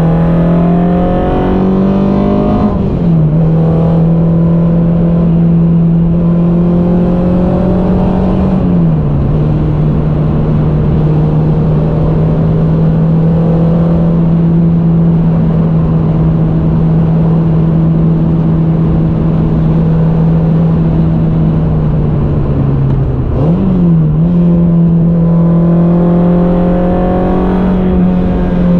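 Modified Peugeot 106 Quicksilver's four-cylinder engine, heard from inside the cabin under hard driving. The revs climb and fall away at two upshifts in the first ten seconds, then hold nearly steady for a long stretch. Near the end they dip and jump quickly back up, as at a downshift.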